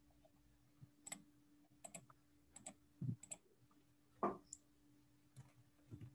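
Faint computer mouse clicks and keyboard taps, scattered about one every half-second to second, with quicker keystrokes near the end, over a faint steady hum.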